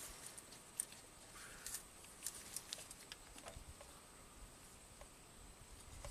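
Near quiet, with faint scattered small clicks and ticks of wires and a soldering iron being handled, over a faint steady high tone.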